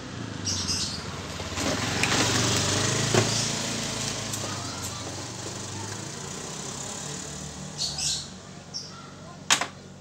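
Rustling and clicking of wires and plastic parts being handled at the open top of a washing machine, with a sharp click near the end. An engine hum swells over the first few seconds and fades away.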